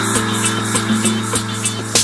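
Background music: sustained chords over a steady, light beat.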